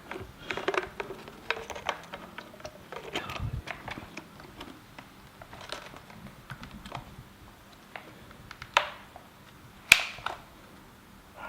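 Handling noises: a scattered run of light clicks and taps, with two sharper clicks about nine and ten seconds in.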